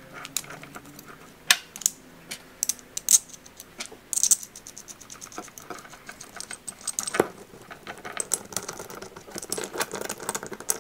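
Metal battery bracket and clamps being handled, with the wiring harness moving against them: irregular small clicks and clinks, the sharpest about a second and a half in, around three seconds in and about seven seconds in.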